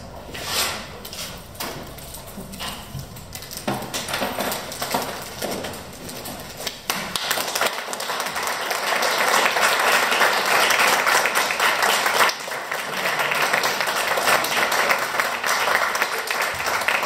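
Audience applauding: a few scattered claps at first, swelling into full, steady applause from about seven seconds in.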